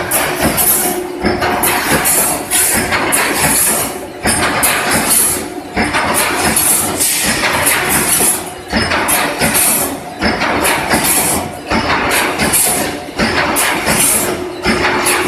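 Reinforcing mesh welding machine running: a loud, continuous mechanical clatter and hiss that dips briefly every few seconds as the machine cycles.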